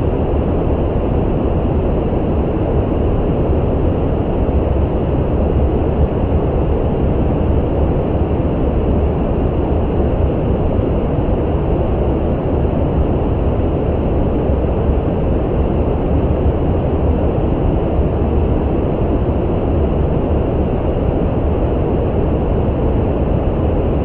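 Brown noise: a steady, deep, even hiss weighted to the low end, unchanging throughout.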